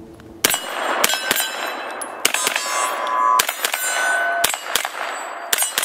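A Double Star 9mm AR-15 pistol firing a string of single shots, starting about half a second in and coming roughly every half second to a second, with steel targets clanging and ringing after hits.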